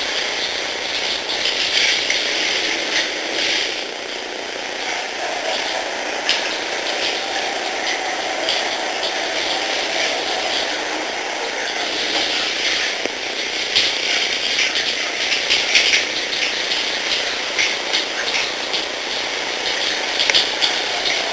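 Shower spray running steadily over a wet dog in a bathtub: a constant hiss of water hitting fur and the tub, with fine crackle and splash.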